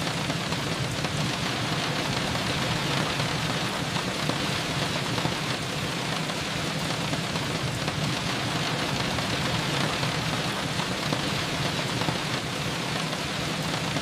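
Steady, even rain falling outside a window.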